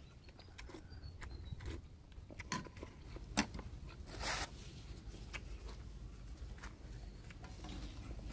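Quiet eating of instant noodle soup: chewing, with scattered clicks and taps of a metal ladle and chopsticks against a stainless steel bowl, the sharpest about three and a half seconds in, and the ladle stirring the broth near the end.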